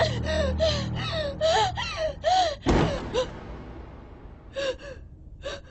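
A person gasping and whimpering in quick, high-pitched panicked breaths over a low, ominous music drone. A single loud thud hits about two and a half seconds in. After it come a few sparser, quieter gasps.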